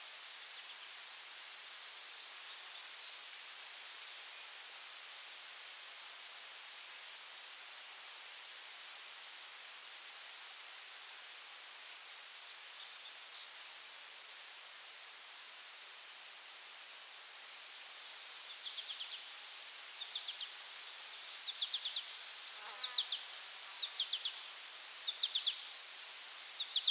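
Forest daytime ambience: insects keep up a steady high drone and a fast, even chirping. Near the end, short, sharper chirps repeat about once a second over the top.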